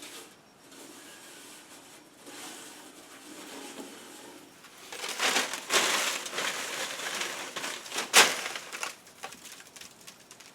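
Cloth shop rag wiping down a metal lathe, rubbing and crumpling, louder from about halfway through, with one sharp knock about eight seconds in.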